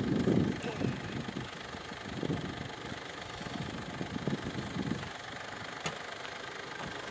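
Ford Endeavour SUV's diesel engine idling steadily, with a louder low rumble in the first second that dies away, and a faint click near the end.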